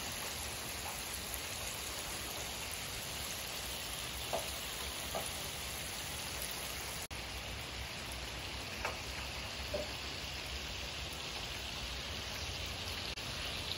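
Steady rain falling, a continuous even hiss, with a few brief faint drips or taps standing out now and then.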